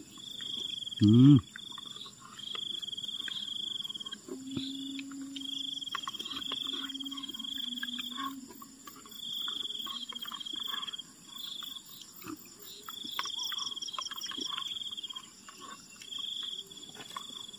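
Insects trilling in repeated bursts of one to three seconds with short gaps, a high, even chirring typical of crickets at dusk. A brief voice is heard about a second in, and a low steady hum runs for a few seconds near the middle.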